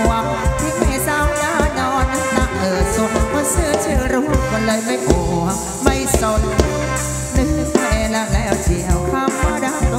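Thai ramwong dance-band music: a melody line over a steady drum beat.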